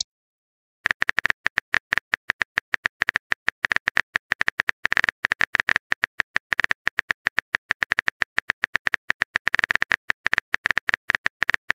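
Phone keyboard typing sound effect: a fast, even run of light key clicks, starting about a second in, as a text message is typed out.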